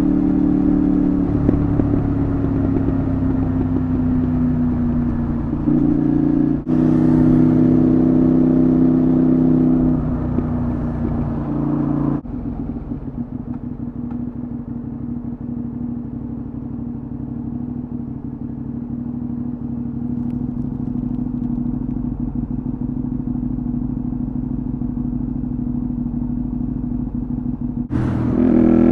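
Honda VTR250 V-twin through a Moriwaki full exhaust system. The engine note sinks at first and rises sharply about six seconds in. It falls away and, from about twelve seconds in, settles to a quieter steady note. A louder note begins rising near the end.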